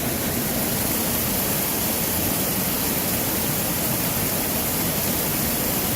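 Steady rushing of a strong water current, a constant even hiss with no breaks.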